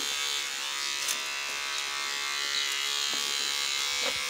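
Electric hair clippers buzzing steadily as they cut hair very short.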